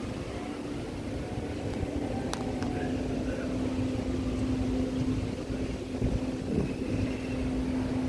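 Wind buffeting the microphone with a low rumble, over a steady low engine hum that comes in about half a second in and slowly grows louder.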